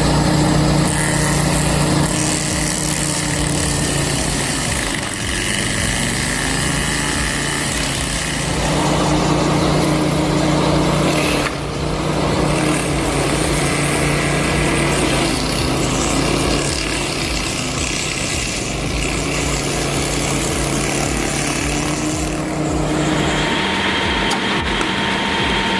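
Stump grinder's engine running steadily, its tone shifting as the load changes while it grinds, with an abrupt change about halfway through.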